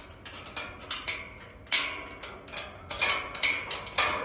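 Metallic clinks and rattles at a metal gate, as a key and lock are worked: about a dozen sharp, irregular clinks, each with a short ring.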